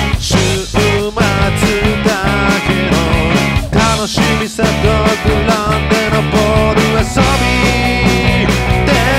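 Home-recorded rock song: programmed drums, bass and electric guitar playing a brisk beat under a sung vocal line.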